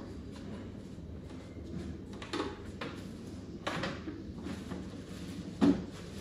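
Handling noises on a desk: a few light knocks and clatters, then one sharper, louder thump near the end.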